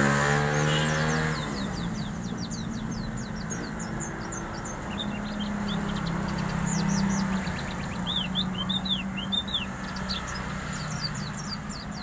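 Pleci (white-eye) singing a fast, varied run of high chirps and twittering phrases, with a few arching notes near the middle. A low steady hum runs underneath, and low droning tones fade out after the first second or so.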